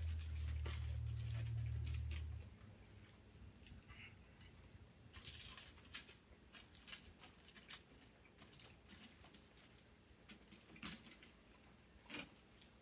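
Close-up eating sounds: scattered small clicks and crackles of chewing and handling food, a steak and cheese sub with fries. A low hum runs for the first two seconds or so and then cuts off.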